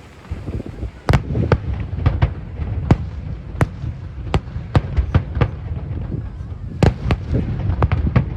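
Fireworks shells bursting in a quick, irregular series of sharp bangs over a continuous low rumble of booms.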